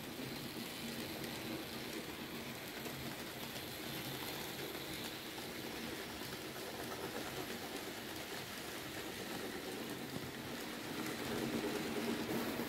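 Several N-scale model locomotives running at once, their small electric motors whirring and their wheels rattling along the track in a steady hiss with a low hum, growing somewhat louder near the end.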